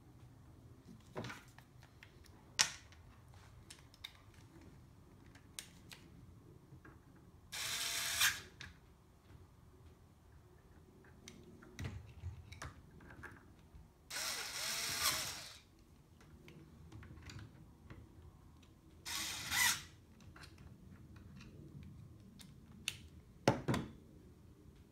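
Three short whirring, rasping bursts of about a second each, spread across the stretch, amid scattered light clicks and knocks from parts and tools being handled while the belt drive of the printer's Y axis is adjusted.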